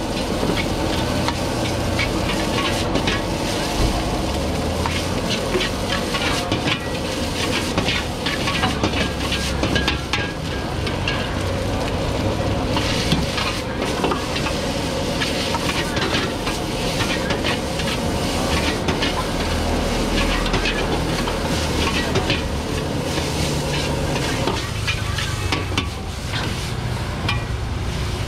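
Rice stir-frying in a wok over a gas burner: a steady sizzle with frequent clacks and scrapes of a metal ladle against the wok, over the low rush of the burner flame. Near the end the sizzle and ladle clatter stop, leaving the burner's flame on its own.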